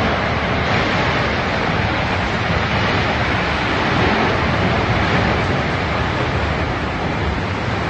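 Loud, steady rush of strong storm wind around a tornado, with a low rumble beneath it.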